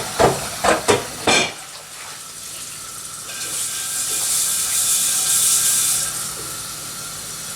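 Mouth sounds of eating: a few sharp wet clicks and smacks while chewing, then a long airy hiss through the mouth lasting about three seconds, which swells and fades.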